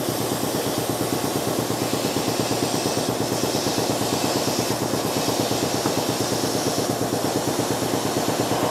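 Metal lathe running, with a steady, fast rhythmic clatter from its drive.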